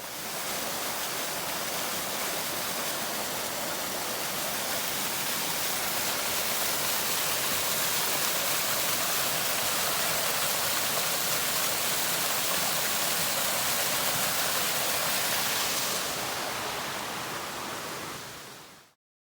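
Mountain creek rushing and splashing over rocks: a steady rush of water that fades in at the start and fades out over the last few seconds.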